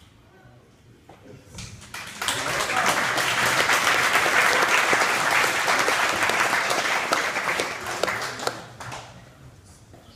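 Audience applauding: the clapping starts about two seconds in, holds steady, and dies away about nine seconds in.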